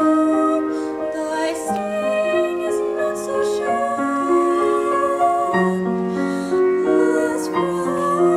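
A youth choir singing in several parts with piano accompaniment, voices holding long notes that change together, with brief hissing consonants now and then.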